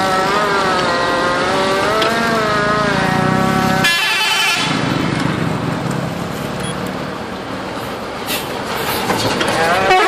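A bus's multi-tone telolet horn sounding a long chord whose pitch wavers up and down, cut off abruptly about four seconds in. After that, road traffic with vehicle engines running.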